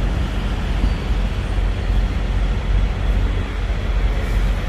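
Kenworth W900's Cummins ISX diesel engine running steadily at low speed, a constant low engine note.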